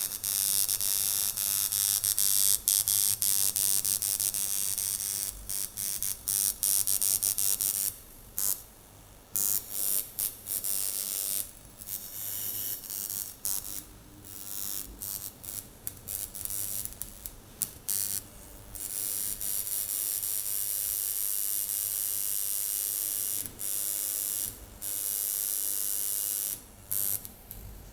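Coil tattoo machine buzzing. It runs steadily for long stretches at the start and again in the last third, and in between it is switched on and off in many short bursts.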